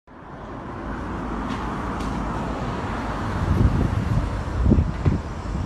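Steady roadside traffic noise picked up outdoors on a phone microphone, fading in at the start, with a few low bumps on the microphone in the second half.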